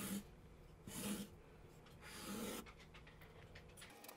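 Black felt-tip marker drawing lines on a sheet of paper laid on a wooden desk: three faint scratchy strokes about a second apart.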